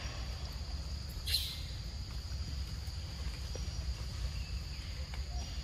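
Steady high-pitched drone of insects in the surrounding forest over a low rumble, with one short rustle about a second in.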